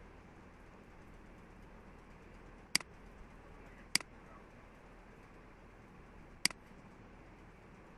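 Three sharp, single computer mouse clicks, spaced a second or more apart, over a steady faint room hiss.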